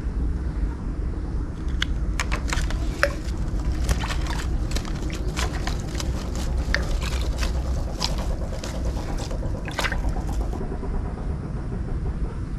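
Steady low wind rumble on the microphone. From about two seconds in until near the end there is a run of rustles and sharp clicks from hands working a green mesh keepnet at the pond's edge.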